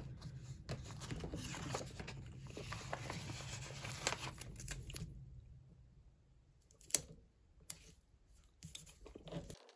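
Soft rustling and small clicks of paper as a yellow planner sticker is picked off its sheet with a fingernail and pressed down onto a planner page by hand, over a faint low hum. After about five seconds it goes quieter, with a few sharp ticks, the clearest about seven seconds in.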